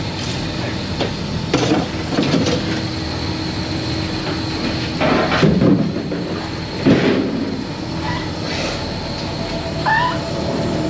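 A boat engine runs with a steady drone, broken several times by clattering and scraping as metal-framed cuttlefish pots are dragged and knocked about on the deck.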